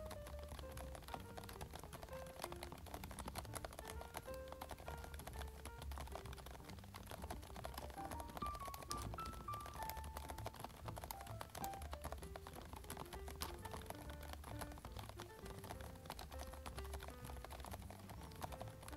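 Rapid typing on a Varmilo Minilo 75% mechanical keyboard with Prestige Silence switches: a steady run of soft key clicks. Background music with held melodic notes and a steady bass plays under it.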